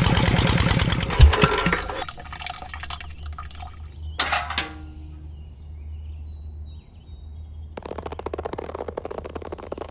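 Miniature model tractor's small motor rattling as it drives a belt-driven model water pump, cutting off with a knock about a second in. A single click follows a few seconds later, and a quieter rattling starts near the end.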